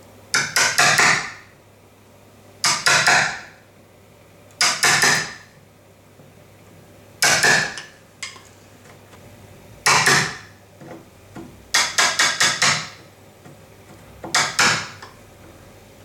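Hammer tapping a wood chisel to cut out the latch recess in the edge of a timber door. The taps come in quick runs of three to six, about seven runs, a couple of seconds apart.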